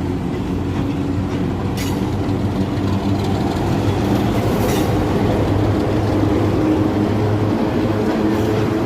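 Train running with a steady low engine drone over the rumble of wheels on rails. Brief hissing bursts come through about two and five seconds in.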